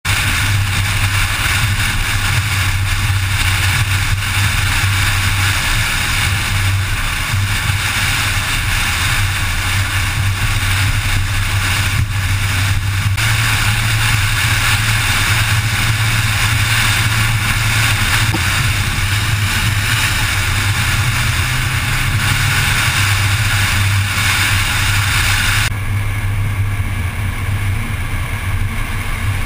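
Car driving at motorway speed: a steady low engine drone under loud rushing road and wind noise. About three-quarters of the way through, the higher part of the hiss drops away and the rush turns duller.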